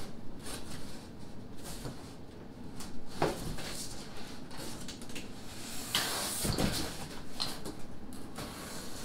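Tape being peeled off the seams of a cardboard mock-up, with the cardboard panels rustling and scraping as they are pulled apart; two louder rips, about three seconds in and again around six and a half seconds in.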